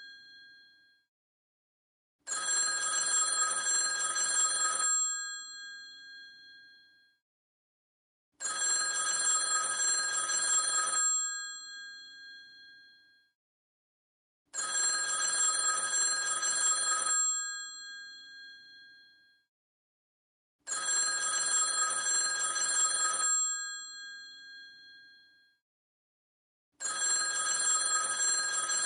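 Old telephone's bell ringing in bursts of about two and a half seconds, repeating roughly every six seconds, five times, each ring sounding on briefly after it stops.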